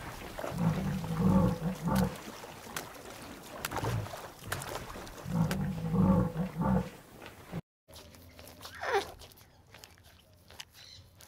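Water buffalo lowing: two low, drawn-out calls about four seconds apart. After a brief cut, a short, higher call slides steeply down in pitch about nine seconds in.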